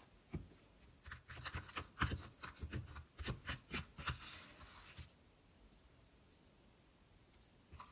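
Metal spoon stirring and scraping a wet, clumpy mixture in a plastic cup: a quick run of clicks, scrapes and squelches for a few seconds, then fainter handling. The mixture has not turned into slime.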